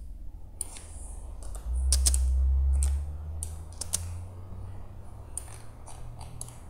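Scattered clicks of a computer keyboard and mouse as the model is worked on. A low rumble from just under two seconds in lasts about a second and is the loudest sound.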